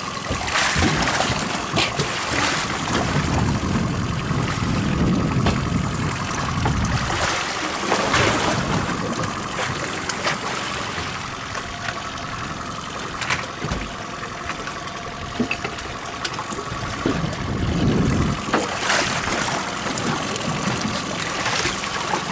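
Sea water sloshing and splashing against a small boat, with sharp splashes every few seconds.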